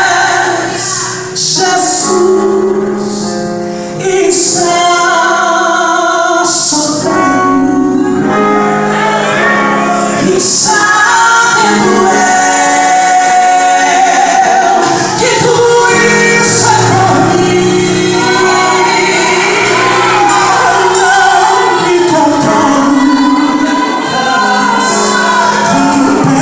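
Live Portuguese-language gospel song: a woman's voice sings the melody over steady instrumental accompaniment with held low notes.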